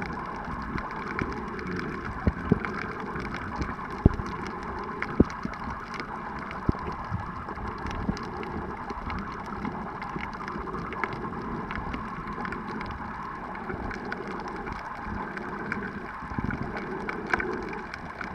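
Underwater ambience picked up by a camera in its housing: a steady, muffled rush of water with scattered sharp clicks and knocks, the loudest a few seconds in.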